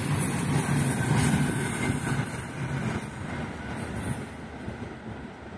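A freight train's open gondola wagons roll past close by, with a steady rumble of steel wheels on the rails. The rumble drops away about three and a half seconds in as the tail of the train passes and recedes down the line.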